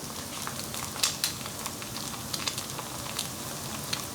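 A thin batter crepe and a freshly cracked raw egg sizzling in a lightly oiled pan: a steady hiss with scattered crackles and pops, a few sharper ones about a second in.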